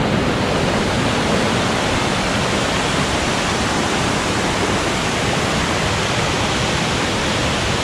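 Waterfall rushing: a steady, even roar of falling water.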